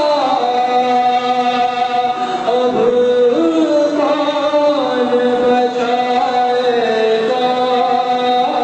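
A man's voice chanting an Urdu salaam, a Shia devotional elegy, in long held notes that step up and down in pitch.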